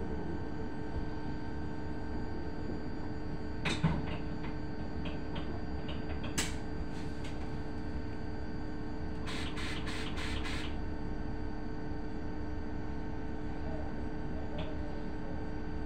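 Cabin hum of an electric bus standing in traffic: a steady electrical hum with several fixed tones from its onboard equipment. A couple of sharp clicks come about 4 and 6 seconds in, and a quick run of five clicks follows around 9 to 10 seconds.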